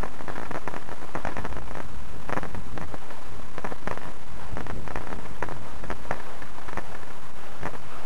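Wind buffeting and handling noise on a handheld camera's microphone: a steady loud rumble with dense crackling throughout.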